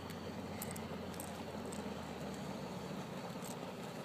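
Steady background rumble with a few faint, sharp clicks scattered through it: handling noise as fingers work at a lipless crankbait's hook in a bass's mouth.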